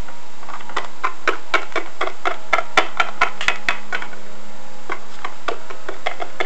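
Light plastic taps and clicks, several a second and thinning out after about four seconds, over a steady hiss: small plastic Littlest Pet Shop figurines being tapped along a wooden tabletop as a hand walks them.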